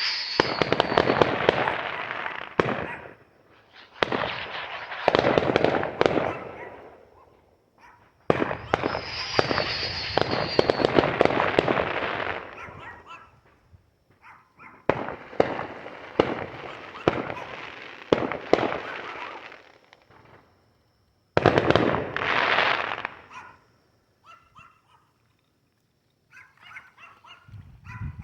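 Fireworks going off in a series of about five loud, crackling volleys, each lasting two to four seconds, two of them with a short falling whistle. Near the end a dog barks faintly.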